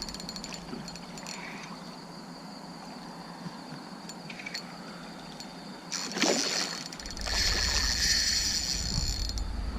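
A hooked barramundi splashing and thrashing at the water's surface as it fights the line: a sharp splash about six seconds in, then a longer stretch of churning water. A steady high drone of night insects runs underneath.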